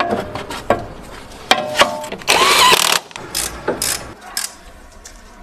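Ratcheting clicks and metal clanks of hand tools as a new front strut bearing is fitted to the strut, with a short loud burst of a power tool a little after the middle.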